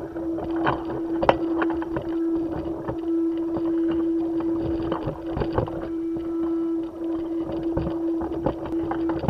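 A steady hum at one pitch, with irregular knocks and scrapes over it. These are vibrations carried through the body of a spacesuit-mounted camera as the astronaut moves, since no sound travels through the vacuum outside.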